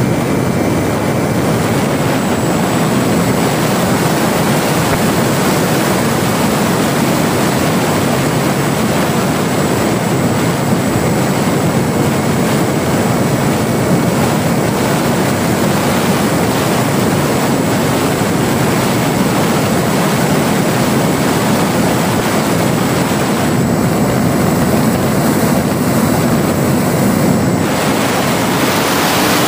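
Steady rush of wind and the whirr of the electric motor and propeller of a ParkZone Spitfire RC model in flight, picked up by its onboard camera's microphone with heavy wind noise.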